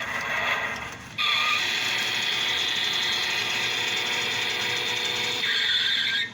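Small electric motor and plastic gearbox of a Road Rippers toy Dodge Ram 1500 truck whirring steadily on a test run, freshly fitted with a new motor and gearbox. The whir starts about a second in and cuts off near the end, after a shorter, weaker sound in the first second.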